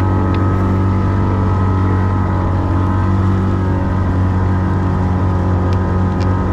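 Motorboat engine running steadily at a low, even pitch.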